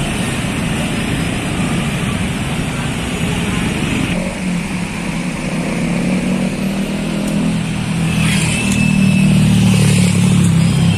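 Tour bus diesel engine running close by in street traffic, getting louder from about four seconds in and loudest near the end as the bus passes. A short hiss comes about eight seconds in.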